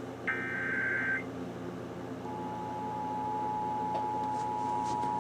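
An Emergency Alert System SAME header data burst, a short warbling digital tone lasting under a second, then after about a second's pause the two-tone EAS attention signal (853 and 960 Hz) begins and holds steady.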